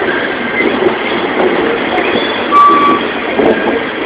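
Amtrak Superliner bilevel passenger cars rolling past close by as the train pulls out: a steady, loud rumble and clatter of wheels on rail. About two and a half seconds in there is a short high steady tone, like a single beep.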